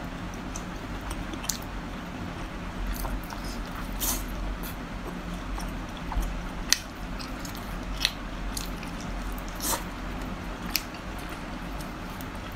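A person chewing cooked octopus close to the microphone: wet mouth smacks and sharp sticky clicks, about half a dozen spread through, over a steady low hum.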